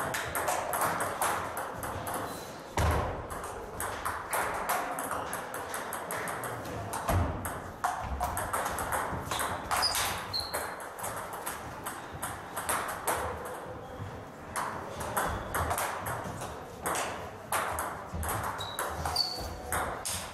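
Table tennis balls clicking off bats and tables in quick, irregular strings of rally hits, from play on two tables at once, with a few heavier knocks among them.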